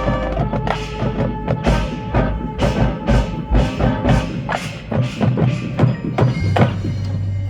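Marching band playing a percussion-driven passage: sharp, evenly spaced strikes about two a second over held chords. Near the end the strikes stop and a low held note remains.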